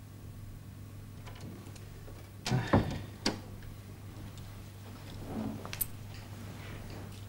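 A steady low electrical hum under a quiet room, broken about two and a half seconds in by a couple of sharp knocks and a thump, then a click, with a soft shuffle and another click a little before six seconds.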